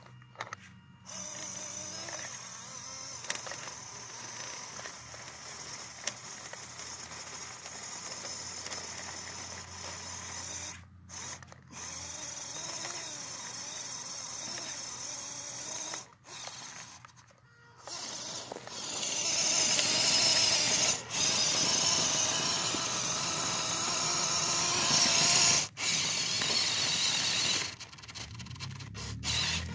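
Electric motor and gear drivetrain of a modified WPL C24 RC truck (stage 3 motor and transfer case) whining as it drives over snow, stopping briefly several times. For about the last third it is much louder, with the wheels churning snow.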